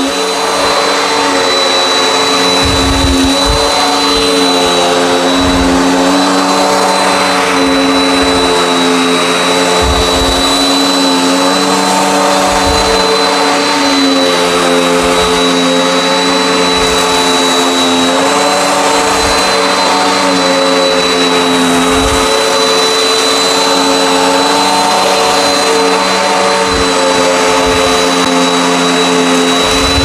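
Dirt Devil Endura Max upright vacuum cleaner running on carpet with its brushroll agitating. The motor's hum dips and rises slightly in pitch as the vacuum is pushed over the carpet, over a thin, steady high whine.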